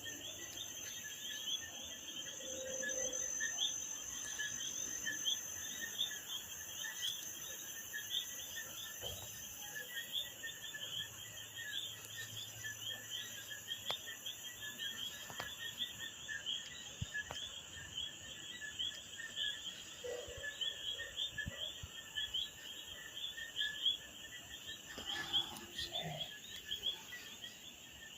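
Dense, continuous chorus of small calling animals, many rapid high chirps overlapping, with a thin steady high whine that stops about ten seconds in.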